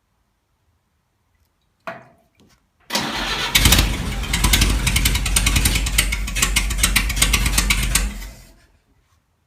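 A vehicle engine is started. A single knock comes about two seconds in, then the engine turns over and runs in rapid pulses for about five seconds before it stops.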